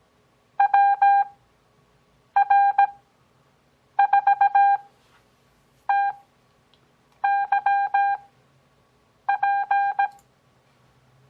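Morse code (CW) tones: six characters of dits and dahs on a single steady beep pitch, each character sent fast at 17 WPM, with long Farnsworth gaps between characters for an overall speed of 6 WPM.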